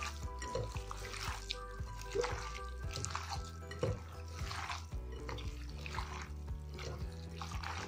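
Wet squelching of a hand kneading raw beef chunks with a spice marinade in a glass bowl, a squish every second or so, over steady background music.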